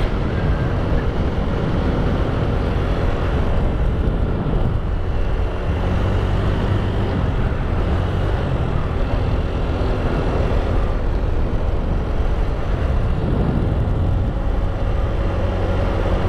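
Motorbike running steadily on the road, a low engine hum under constant wind and road noise.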